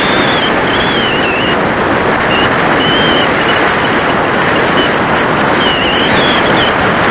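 Steady, loud rush of airflow over the onboard camera of an RC glider in flight. A thin high whistle wavers in pitch and comes and goes over it.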